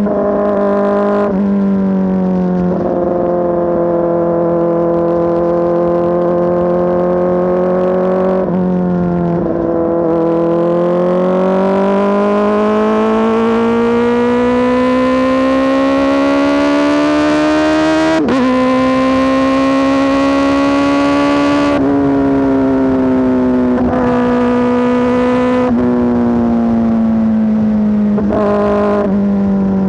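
Kawasaki ZX-4RR's inline-four engine running through an SC Project S1 aftermarket exhaust, loud. The pitch jumps several times, climbs steadily for several seconds through the middle, breaks sharply, then drops in steps toward the end.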